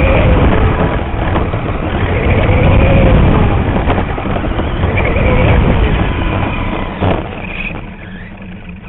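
Radio-controlled mini late model race car heard from a camera mounted on its own body: the drivetrain rattles and rumbles over the track surface, with a motor whine that rises and falls in pitch as it speeds up and slows. About seven seconds in there is a sharp knock, and the noise then drops away as the car slows.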